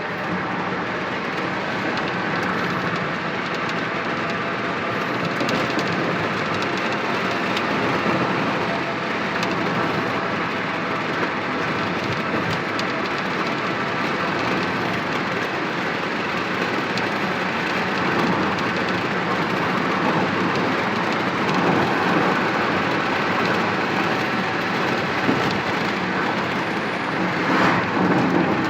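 Vehicle driving at a steady speed: continuous engine and road noise.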